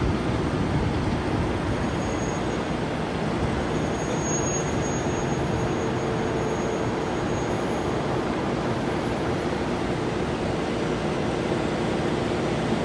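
Steady outdoor background noise: an even low rumble with hiss and no distinct events.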